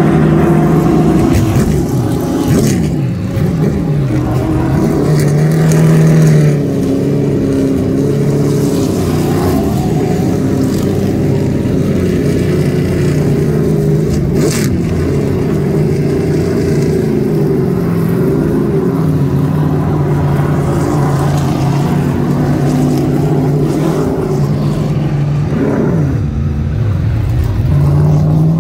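Several super late model race cars' V8 engines running as they go by on track, their pitches rising and falling as the cars pass.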